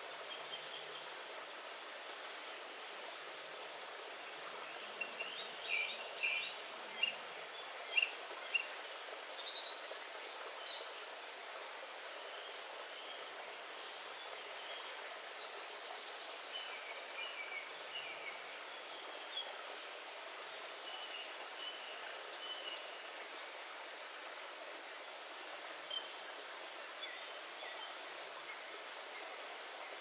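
Small forest stream rushing steadily over rocks, thin-sounding with its low end filtered out, while songbirds chirp here and there, in a short flurry about five to ten seconds in and again near the end.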